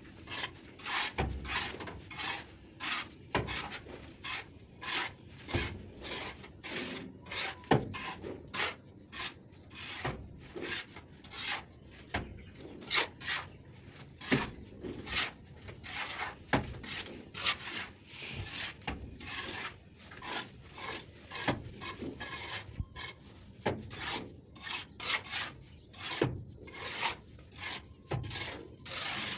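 A plastering tool scraping and rubbing wet cement-and-sand plaster across a brick wall, in repeated short strokes of about one or two a second.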